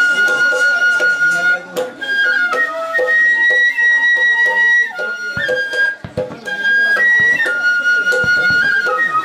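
Live instrumental music: a wind instrument plays a slow melody of long held notes that step up and down, over a lower accompaniment.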